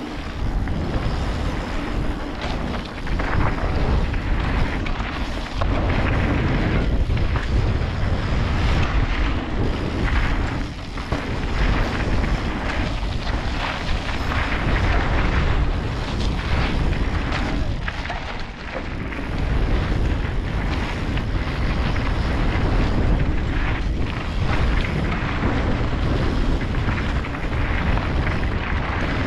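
Wind buffeting a helmet-mounted camera's microphone while riding a mountain bike fast down a dirt and gravel trail, mixed with tyre noise and bike rattle. The noise is loud and rumbling, easing briefly a couple of times.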